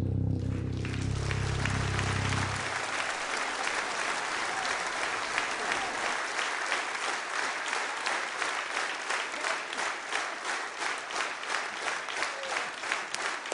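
Concert audience applauding as the band's final low chord rings out and stops about two and a half seconds in. The applause then turns into rhythmic clapping in unison, about two claps a second.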